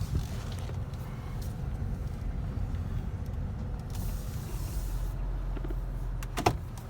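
Low, steady rumble of a car moving slowly, heard from inside the cabin, with one short sharp click near the end.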